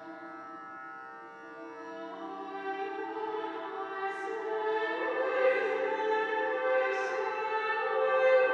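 Women's vocal ensemble singing in a large church: a soft held chord at first, then more voices join and the sound grows louder from about two seconds in, with the 's' sounds of the sung words standing out a few times.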